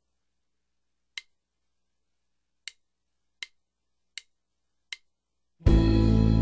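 Five short, sharp clicks at uneven intervals in otherwise dead silence, then music starts loudly near the end.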